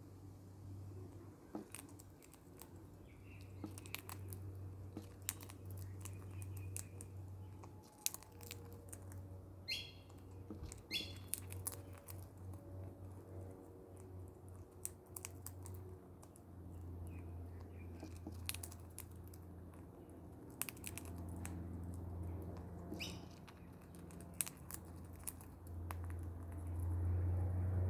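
A parrot eating: scattered sharp clicks and crunches of its beak working food, with a few short chirps, two of them close together about ten seconds in, over a steady low hum.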